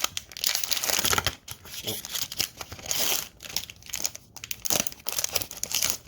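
Pokémon TCG booster pack's plastic-foil wrapper crinkling and tearing as it is opened, in repeated irregular surges.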